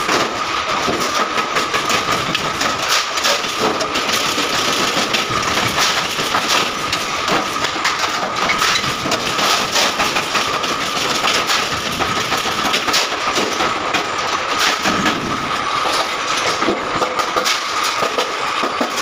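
A pedestal spot welder clacking shut again and again on sheet-steel gas stove bodies, with many short sharp clicks over a steady high hum and the continuous noise of other factory machinery.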